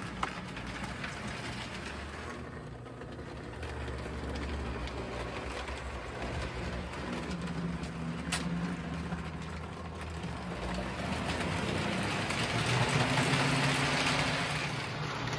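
O-scale Lionel model trains running on the layout: a steady rumble of wheels on the track with the hum of the locomotive motor, growing louder about twelve seconds in as a train passes close. A single sharp click about eight seconds in.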